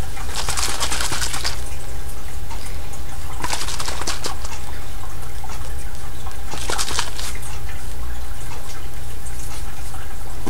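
A baby bottle being handled and shaken close to the microphone: three short swishing noises, about a second in, near four seconds and near seven seconds, over a steady low hum with a faint steady tone.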